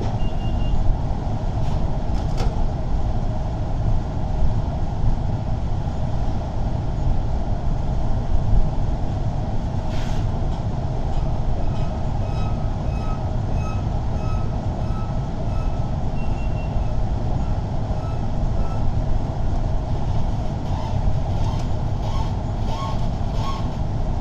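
Heavy equipment engine running steadily. Through the middle a reversing alarm beeps about twice a second for several seconds.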